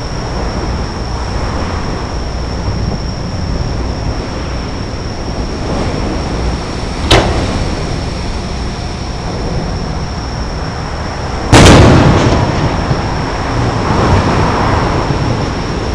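Two fireworks shell bursts booming over a steady background rumble: a sharp crack about seven seconds in, then a louder boom with a rolling echo about eleven and a half seconds in.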